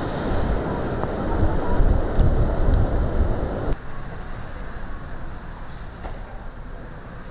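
Hurricane-force wind and driving rain, with heavy gusts buffeting the microphone in a loud low rumble. About four seconds in it drops suddenly to a quieter, steady rush of wind and rain.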